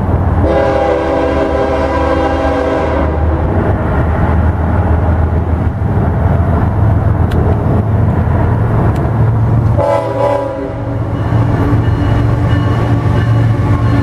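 Diesel freight locomotive's air horn sounding a multi-note chord for about three seconds, then the low drone of the locomotive's engine. A second, shorter horn blast comes about ten seconds in, followed by the engine drone of a locomotive passing close.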